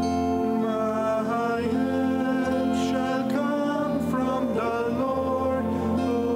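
Slow sacred singing over instrumental accompaniment, with long held notes and the melody moving gently between them.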